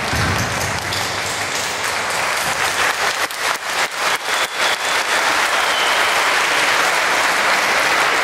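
Audience applauding steadily, with separate sharp claps standing out in the middle.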